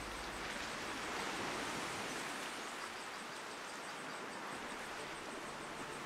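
Outdoor natural ambience: a steady rushing noise with faint, regular high-pitched insect chirps, about three a second.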